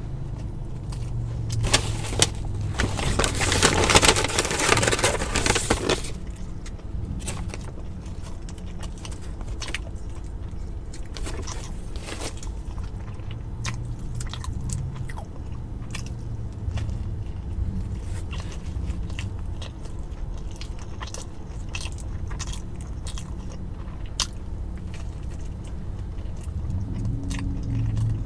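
Close-miked biting and chewing of a barbecue chicken sandwich, with scattered wet mouth clicks and crunches over a steady low hum. A few seconds in, a loud rustling noise lasts about three seconds.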